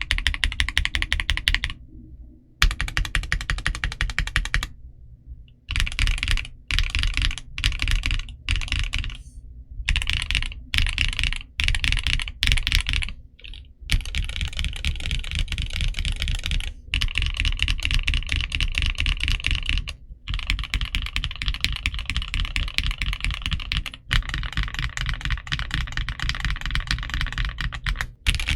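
Typing on a Gamakay SN75 mechanical keyboard with a polycarbonate plate, a rapid stream of key clacks. It comes first in short bursts with pauses between them, then turns to steady fast typing with only brief breaks for the second half.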